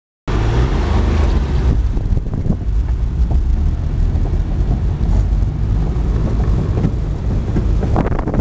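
Suzuki Carry mini truck on Mattracks rubber track conversion driving over rough grassy ground: a loud, steady low rumble of engine and tracks with occasional knocks and rattles, heard from inside the cab.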